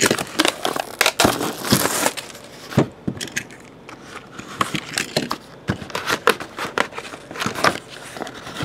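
Cardboard box and plastic packaging being handled and opened by hand: tape at the box edge slit, then a stiff plastic photo sleeve slid out. Irregular crackles, crinkles and sharp clicks with short rustles in between.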